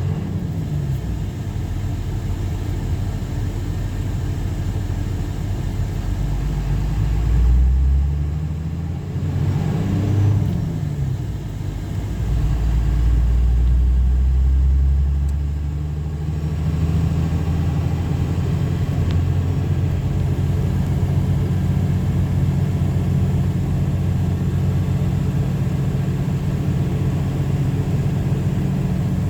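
A Dodge driving along a city street: steady engine and road rumble, with a few brief rises and falls in pitch about eight to ten seconds in, and a louder low rumble a few seconds later.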